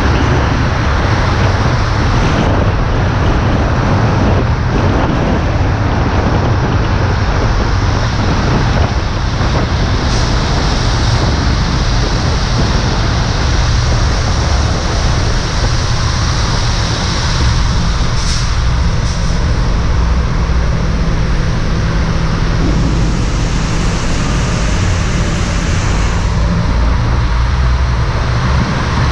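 Steady road noise from a car driving on a wet highway in the rain, heard from the hood: tyre hiss on the wet pavement over a heavy rumble of wind on the microphone, with passing traffic.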